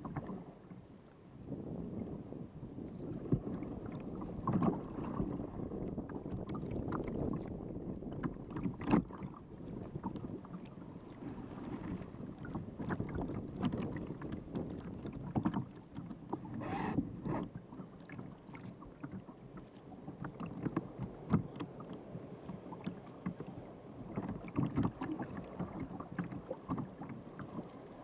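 Sea kayak under way: water splashing and gurgling along the hull and paddle blades, with scattered sharp clicks and splashes and some wind on the microphone.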